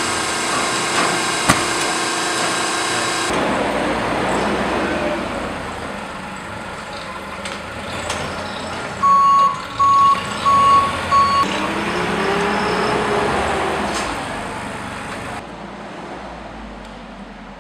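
Steady industrial machine noise, with four short, loud electronic warning beeps at one pitch about nine seconds in.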